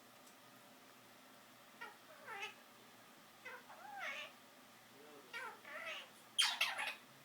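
A pet talking bird vocalising: a series of short calls that slide up and down in pitch, about a second apart, then a loud, harsh squawk near the end.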